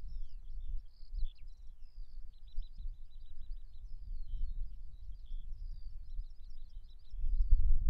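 Small songbirds singing, a busy run of chirps and quick trills, over an uneven low rumble that swells louder near the end.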